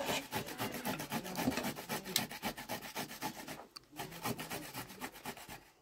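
A vegetable being grated on a handheld metal grater into a metal bowl: quick rasping strokes in a steady rhythm, with a short break about two-thirds of the way through.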